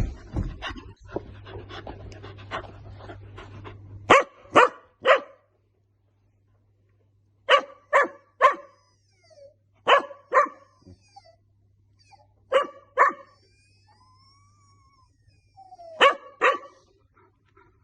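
Golden retriever puppy barking in quick groups of two or three short barks, five groups with pauses between them.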